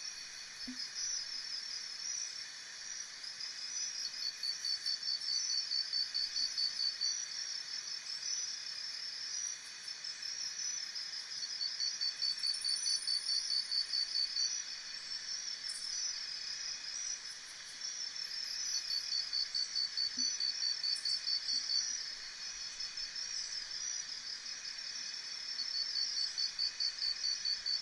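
Insects chirping: a chorus of high-pitched, rapidly pulsed trills in overlapping rhythms, some stretches swelling and fading every few seconds.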